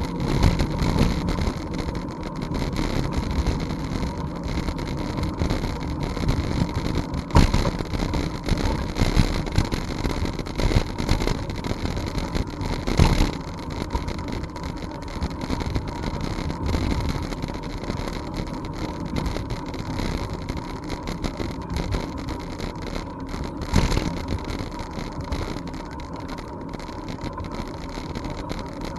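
Riding a bicycle along a trail: wind buffeting the camera's microphone over the rumble and rattle of the tyres and frame, with a few sharp knocks.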